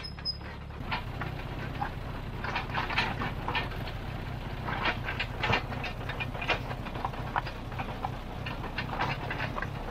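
Bristol 25 crawler dozer travelling, its engine running steadily under the irregular clanking of its steel tracks.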